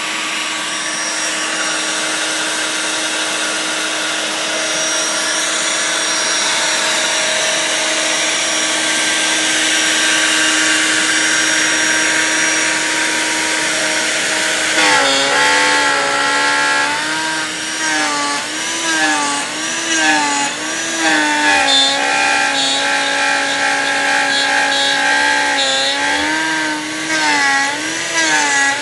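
Router spindle on a homemade CNC machine running and cutting Baltic birch plywood: a steady motor whine over the hiss of the cut. About halfway through, the pitch starts to waver up and down, again and again.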